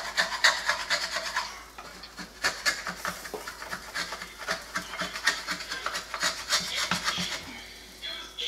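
Quick runs of rasping, scraping strokes close by, several a second, with a short pause about two seconds in and tailing off near the end.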